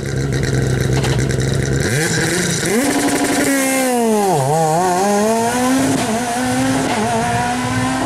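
Ford Fiesta rally car's engine idling steadily, then revved up sharply twice about two seconds in. The revs drop and climb back around the middle, then hold with small rises and falls.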